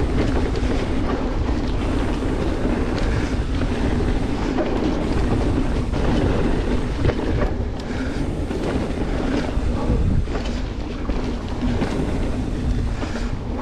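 Mountain bike ridden on dirt, heard from a bike- or rider-mounted action camera: steady tyre rumble with constant small rattles and knocks from the bike, and wind on the microphone.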